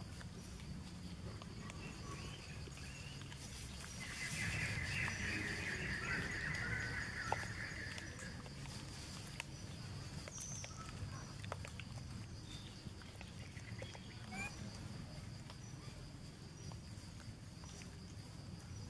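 Outdoor forest ambience: a steady high-pitched drone, with a few seconds of rapid high chirping starting about four seconds in, and scattered light clicks and rustles.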